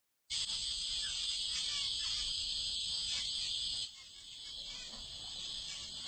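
Steady high chirring of insects, with faint chirps from a flock of Gouldian finches; the chirring drops away suddenly about four seconds in.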